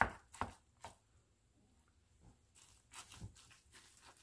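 Utensil working broth-soaked crumbled cornbread in a mixing bowl: three quick knocks in the first second, then a pause, then soft scraping and squishing near the end.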